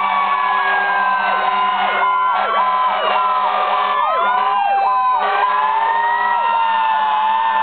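Several emergency-vehicle sirens from fire apparatus sounding at once and overlapping: slow rising and falling wails over faster sweeps that dip and climb again about twice a second.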